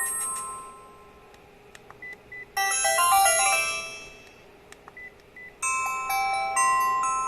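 Sharp GX30 mobile phone playing its built-in polyphonic ringtones: a bright melody about two and a half seconds in that fades out, then another starting near the end, with a few faint short beeps in the gaps.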